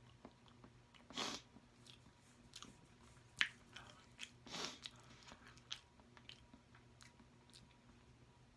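A person chewing soft seafood-boil food close to the microphone: quiet wet mouth clicks and smacks, a sharper click about three and a half seconds in, and two longer, louder noises about a second in and about four and a half seconds in.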